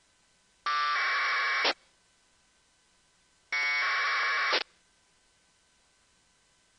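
Two APRS packet bursts on 144.390 MHz, received through an RTL-SDR in narrowband FM: each is about a second of 1200-baud AFSK data tones that start and cut off abruptly as the squelch opens and closes, the second coming about two seconds after the first.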